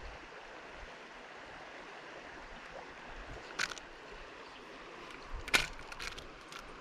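Creek water running steadily, with a few short sharp clicks, the loudest about five and a half seconds in.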